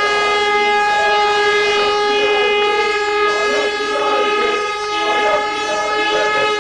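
A horn held in one long, unbroken blast at a steady pitch, over a crowd's shouting voices.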